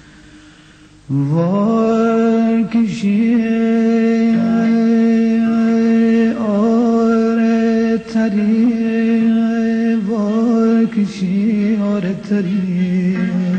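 A male voice sings long held notes without words, sliding up into the first one about a second in, then holding each note with wavering ornamental turns and short breaks for breath between phrases.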